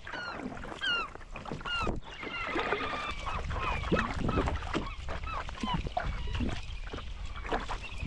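A flock of gulls calling over and over, many short overlapping cries, as they lift off the mudbank, with kayak paddle strokes splashing in the water underneath.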